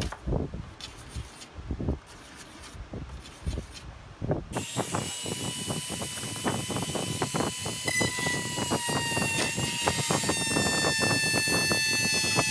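A pencil scratching marks onto a hard plastic dash panel, then, about four and a half seconds in, a handheld rotary tool cutting into the plastic, running with a steady high whine and hiss whose pitch shifts a little as it bites.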